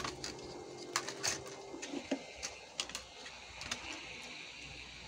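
Light clicks and knocks from a circuit board being handled and set down on a silicone bench mat, about a dozen in the first four seconds, then only a faint steady background.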